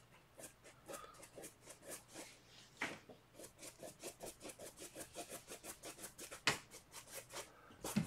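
Paintbrush working thick acrylic paint onto a canvas in short, quick scrubbing strokes, faint and scratchy, settling to about three or four strokes a second, with a sharper tap twice.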